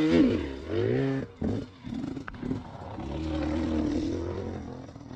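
Dirt bike engine revving in short up-and-down blips for about the first second, then running at a steady pitch.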